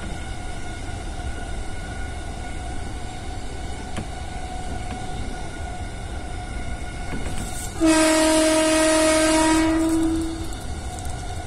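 Electric commuter train's horn sounding one steady single-tone blast of about two seconds, starting suddenly about eight seconds in, over the train's steady running noise and a faint motor whine heard from the driver's cab.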